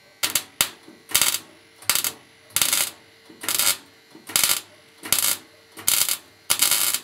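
Semi-automatic wire-feed welder welding thin car-floor sheet steel in short bursts. The arc crackles about ten times, each burst under half a second with a short pause between. This is stitch welding a patch a little at a time to keep the sheet from warping.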